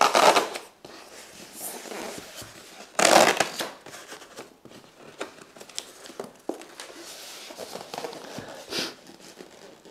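Adhesive tape peeled off a styrofoam packing box: a short ripping burst near the start and another about three seconds in. Light rustling and clicks follow as the styrofoam box is handled and lifted.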